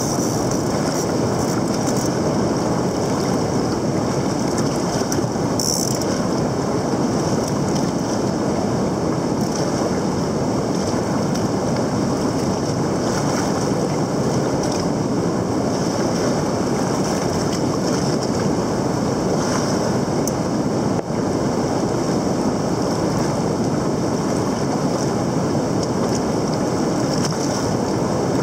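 Fast river rapids rushing over rocks in a steady rush of water.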